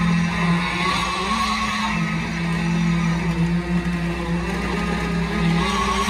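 Steady drone of concrete-pouring machinery, the pump truck's engine and a poker vibrator working the fresh concrete, its pitch stepping down and back up between two levels a few times.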